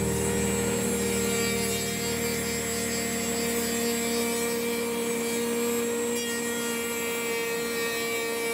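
A 6012 CNC router milling a hardwood railroad sleeper on a flattening pass: a steady cutting and rubbing noise with a constant machine tone running under it.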